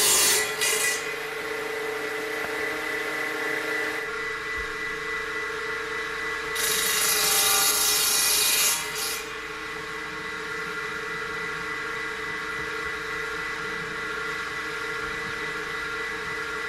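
Belt-driven table circular saw running with a steady hum and cutting through wood twice: a short cut right at the start and a longer cut of about two and a half seconds beginning about six and a half seconds in.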